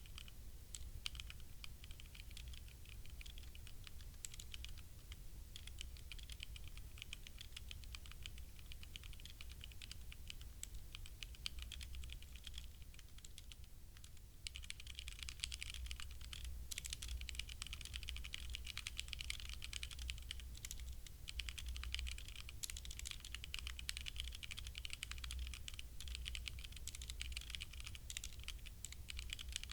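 Typing on a HyperX Alloy Origins Core mechanical keyboard with linear HyperX Red switches: a fast, steady patter of keystrokes. The typing eases for a moment about halfway through, then picks up denser and a little louder.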